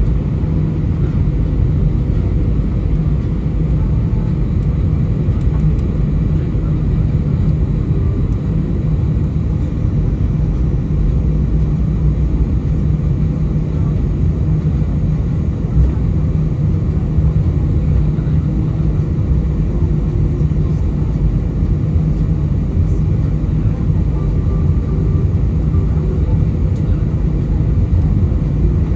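Airbus A320 taxiing, heard inside the passenger cabin: a steady low engine rumble with a constant hum.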